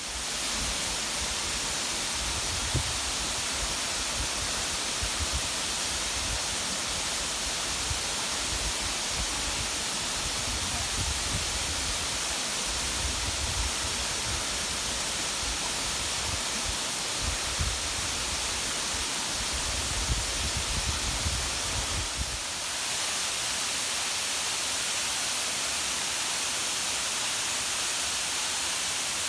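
Waterfall pouring, a steady even rush of falling water. An uneven low rumble underneath stops about two-thirds of the way through.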